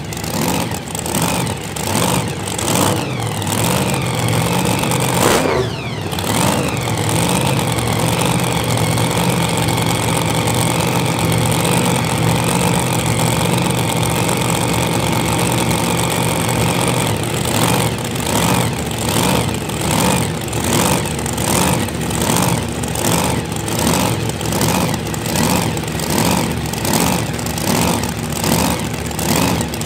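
Nostalgia funny car's drag racing engine idling with a lumpy, pulsing rhythm. It runs steadier for about ten seconds in the middle.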